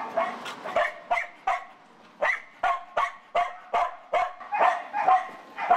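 Search-and-rescue dog barking repeatedly, about two to three short, sharp barks a second.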